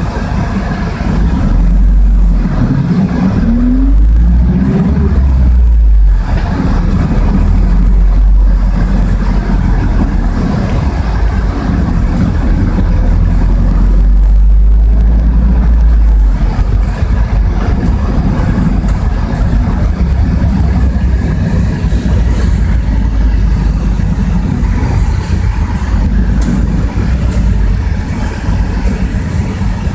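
Inside a Bogdan A09204 city bus on the move: the diesel engine rumbles under steady road noise. A couple of seconds in, it revs up, its pitch rising for a few seconds.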